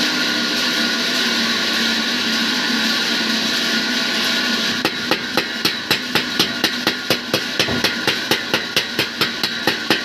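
Steady mechanical hum, then, about halfway through, a hammer starts striking metal in quick, even blows, about four a second.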